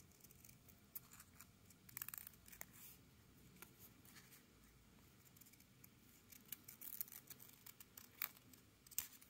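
Small pink-handled craft scissors snipping around a heart shape in folded paper: a string of quiet, irregular short snips, in bunches about two seconds in and again near the end.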